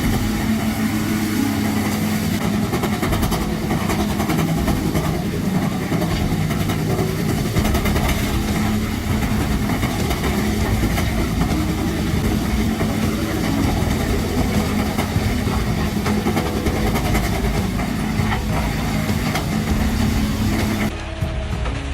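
Bandit Beast 4680 horizontal wood grinder running under load: a heavy engine's steady drone mixed with the noise of wood being chipped and ground. The sound changes abruptly and drops a little about a second before the end.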